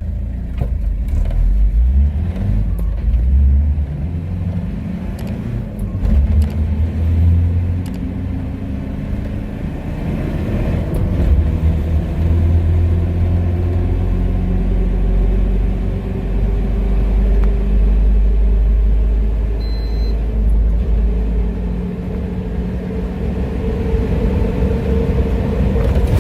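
Toyota Land Cruiser engine accelerating hard with a deep rumble, its pitch climbing and dropping back a few times in the first half as it shifts, then climbing slowly and steadily in a long pull.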